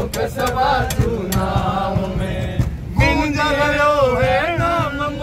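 A group of men singing a chant-like song together, with sharp claps keeping time. About three seconds in, a strong lead voice with a wavering melody comes to the front.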